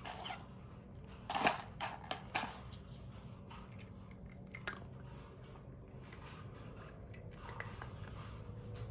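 Cats working a food puzzle feeder: scattered light clicks and knocks of kibble and plastic parts, mixed with crunching, loudest for about a second near the start.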